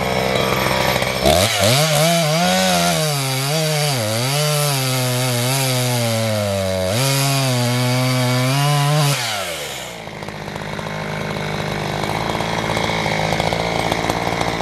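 Two-stroke chainsaw idling, then revved up about a second in and cutting firewood for about eight seconds, its pitch dipping and recovering as the chain bites into the wood, before dropping back to idle.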